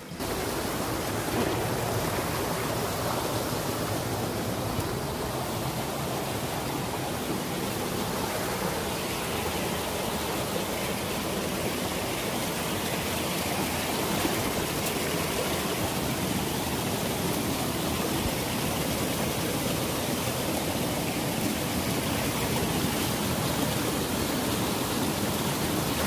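Steady, even rush of a stream's flowing water near the top of a waterfall.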